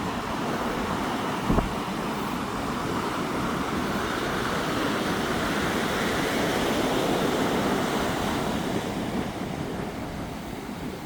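Ocean surf washing ashore with wind blowing over the microphone; the rush swells in the middle and eases near the end, with a brief low buffet of wind on the microphone about a second and a half in.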